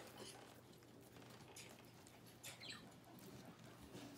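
Near silence: faint room tone with a few soft, brief ticks.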